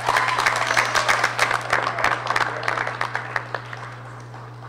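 Audience applauding, a dense patter of many hands clapping that thins and fades out about three and a half seconds in.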